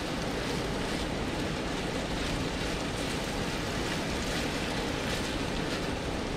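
Steady rushing of a mountain stream.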